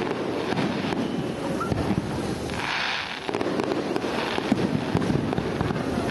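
Fireworks display: aerial shells bursting one after another in a continuous mix of booms and crackling pops, with a brief loud hiss about halfway through.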